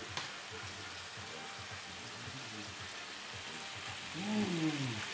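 Chopped cuttlefish in squid-ink sauce sizzling steadily in a frying pan. About four seconds in, a man gives a short wordless vocal sound, a falling 'ahh'.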